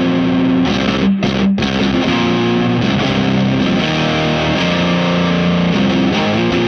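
Offset electric guitar tuned to C standard, played through a Space Sounds Meteor Distortion pedal with a Line 6 delay: heavily distorted low chords held and ringing, with two brief breaks about a second in.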